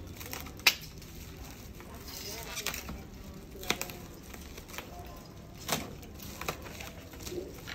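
Scattered handling noises from unboxing watches and their packaging: a handful of short sharp clicks and knocks, with light rustling in between, over a steady low hum.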